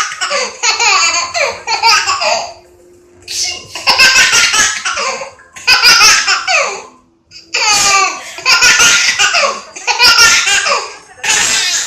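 A baby laughing hard at sneezes, in four bouts of squealing laughs that fall in pitch, with short pauses between them.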